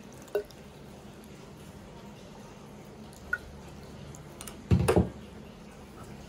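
Water going into flour in a mixing bowl: a couple of small drip-like plinks, then a short cluster of dull knocks about five seconds in as the bowl and dough are handled.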